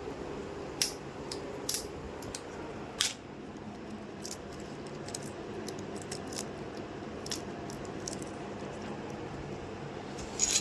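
Irregular small, sharp clicks and taps of plastic and metal laptop parts being handled during disassembly, with a few louder clicks in the first three seconds, over a steady background hum.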